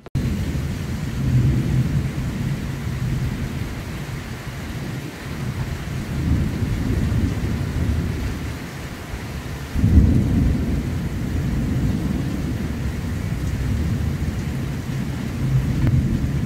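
Thunder rumbling continuously in rolling swells, the loudest about ten seconds in, over a steady hiss of rain.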